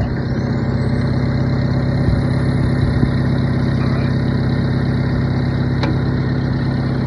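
Stump grinder engine running steadily just after starting, with a faint high whine that rises and levels off in the first second.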